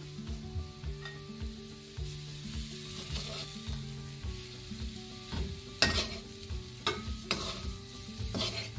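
Chicken pieces and curry leaves sizzling in oil in a pan as a perforated metal spoon stirs and turns them, with a few sharp clicks of the spoon against the pan in the second half.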